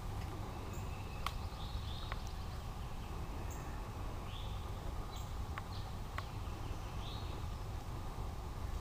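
Outdoor woodland ambience: a steady low rumble of wind on the microphone, with a handful of short, high bird chirps and a few sharp clicks scattered through it.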